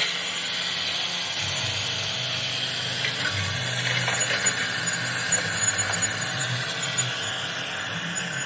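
Toy remote-control excavator's small geared electric motors whirring as it drives and turns on its tracks over gravel, with scattered small clicks.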